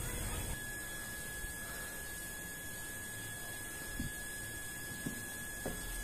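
Steady high-pitched hum, with three soft thuds in the second half as a small rug is rolled up by hand.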